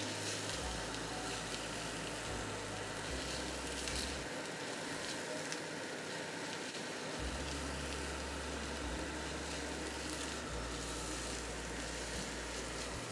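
Diced pumpkin, bacon and onion sizzling steadily in a frying pan as a spatula stirs them, with a few light scrapes of the spatula on the pan. Under it runs the steady rush of the kitchen range-hood fan.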